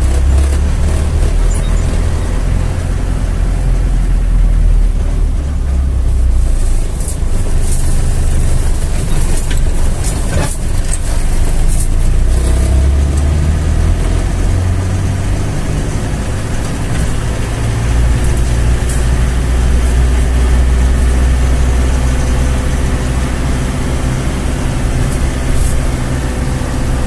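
Motor vehicle engine running steadily at low revs over road noise while driving, the engine note shifting a few times, with a few sharp knocks about ten seconds in.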